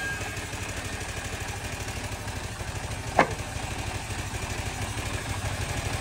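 An engine idling with a steady low pulsing, running without load just after the cut ends. A single sharp knock about three seconds in.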